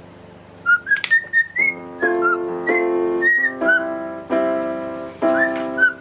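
Cockatiel whistling a tune in short clear notes that rise and fall in pitch, starting just under a second in. From about a second and a half a keyboard joins underneath, playing a new note or chord roughly every 0.7 seconds.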